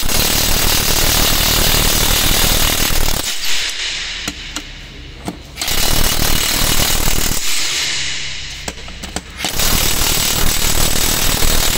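Makita TW001G 40V max XGT cordless impact wrench hammering on tractor wheel lug nuts. It goes in several runs of a few seconds each, with short breaks as it moves from nut to nut.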